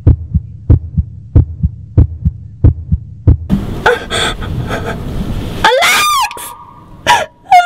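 Heartbeat sound effect: a steady double thump, lub-dub, about one and a half beats a second, which stops about three and a half seconds in. A noisy rush swells up after it, then near the end come shrill sliding cries and a steady high tone.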